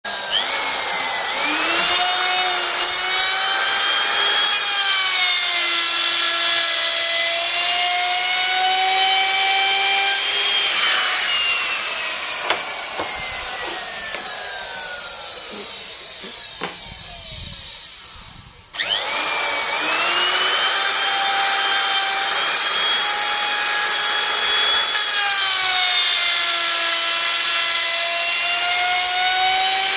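Electric power tool cutting wood. The motor whine sags and recovers in pitch as it bites, winds down with a falling pitch after about ten seconds, then comes back suddenly at full speed about two-thirds of the way in.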